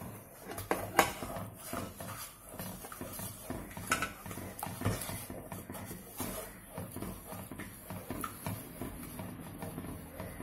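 Wooden spatula stirring and scraping a thick mixture of melting palm jaggery and ghee in a pan, with irregular knocks and scrapes against the pan's sides and bottom.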